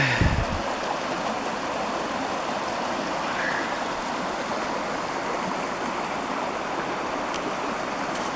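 A stream of rushing water running steadily, with a brief low thump at the very start.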